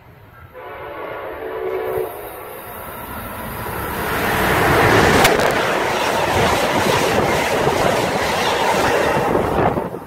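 Amtrak Acela Express trainset sounds its horn in one blast of about a second and a half, then passes at speed with a loud rush of wheels on rail. The rush drops away sharply as the last car goes by.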